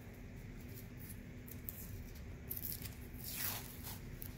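Steady low hum of a room air conditioner, with two soft rustles about two and a half and three and a half seconds in.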